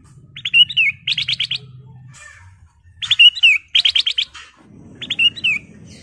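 Ruby-throated bulbul (kutilang emas) singing: five short, loud phrases of rapid clear whistled notes, several ending in a quick warbling slur.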